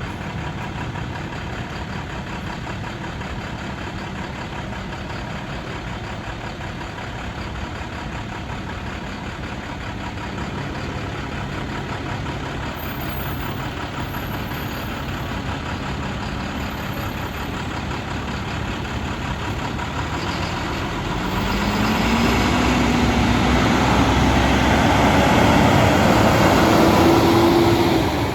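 Heavy truck engines running. About two-thirds of the way in, one truck grows louder and its engine pitch rises steadily as it accelerates, until the sound cuts off abruptly.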